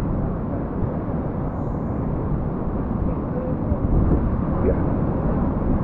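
Steady, muffled low rumble with the high end cut off, picked up by a GoPro Hero8 microphone still waterlogged from being dunked in pool water.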